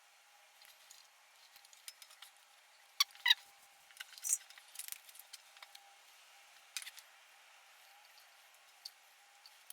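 Scattered small clicks, taps and rustles of gloved hands handling wires and tools while soldering motorcycle wiring. The loudest is a pair of sharp clicks about three seconds in, with another short cluster just after four seconds.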